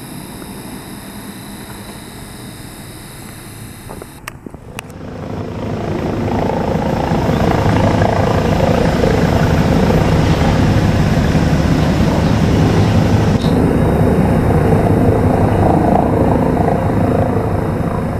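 Helicopter rotors and engine passing overhead. After a quieter stretch with faint steady high tones and a couple of clicks, the rotor noise swells about five seconds in and stays loud and chopping to the end.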